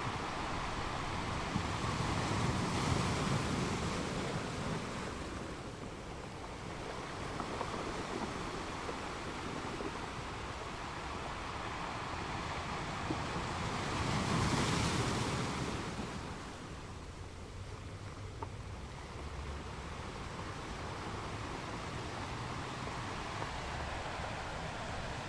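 Sea waves breaking on a rocky shore, a continuous wash of surf with two louder crashes, one a few seconds in and one a little past the middle.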